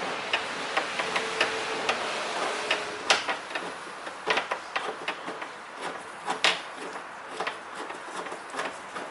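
Hands working a loosened bolt and small metal parts inside a car door, making irregular small clicks and taps. A few sharper knocks stand out, the loudest about three seconds in and six and a half seconds in.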